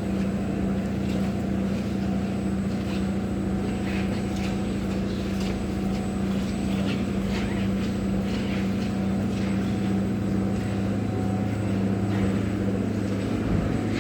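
Steady electrical and mechanical hum of an insulating-glass production machine running, with a strong constant low tone and faint scattered ticks. Near the end the main hum tone drops away and a lower one carries on.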